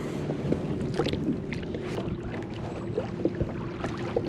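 Water lapping and splashing lightly against a kayak hull, with small scattered knocks and taps on the boat.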